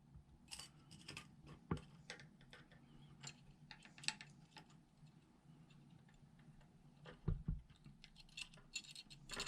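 Faint, irregular small clicks and taps of a screwdriver tip and a new seat-and-spring being worked into the valve hole of a two-handle Delta faucet, with a couple of duller knocks about seven seconds in and a quick run of clicks near the end.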